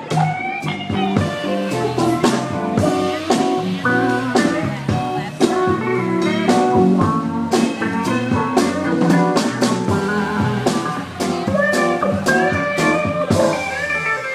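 Live jazz-blues band playing: electric guitar, keyboards and drum kit.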